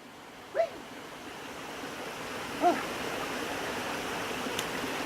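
Steady rushing of waterfall and creek water, growing a little louder over the first couple of seconds and then holding even, with two brief voice-like sounds.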